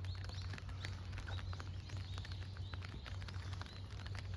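Small birds chirping over and over in short calls, over a steady low hum.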